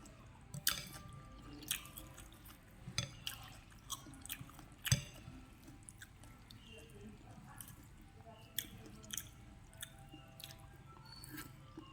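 Close-up eating sounds from a mouthful of Khmer rice noodles (num banhchok): wet chewing with irregular smacks and clicks, the sharpest one about five seconds in.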